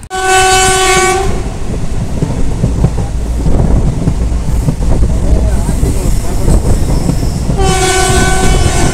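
Passenger train running at speed, heard from an open coach door: a steady rumble of wheels with clicks over the rail joints. The WAG-9 electric locomotive's horn sounds for about a second at the start and again near the end.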